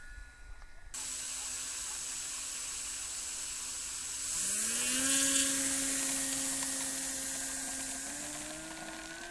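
Electric inrunner motor and folding propeller of an RC model Cessna 177 throttling up for a takeoff run: a whine that rises in pitch about four seconds in, then holds steady and climbs a little more near the end, over a steady hiss.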